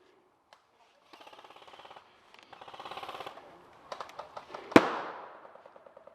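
Airsoft guns firing on full auto: two rapid rattling bursts, then scattered single shots and one loud sharp bang near the end that rings out for about a second.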